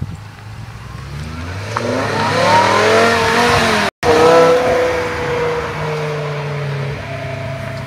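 A performance car engine accelerating, its note climbing in pitch and growing louder. After a brief dropout about four seconds in, the engine runs high and loud, then its pitch slowly falls and settles lower near the end.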